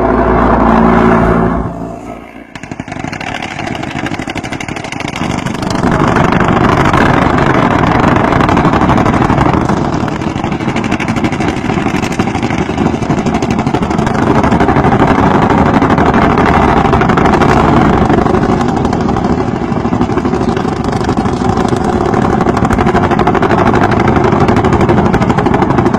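Helicopter-mounted machine guns firing long, very rapid bursts that run together into a continuous buzz, over helicopter noise. A short break comes about two seconds in, then the firing swells and eases in several long stretches.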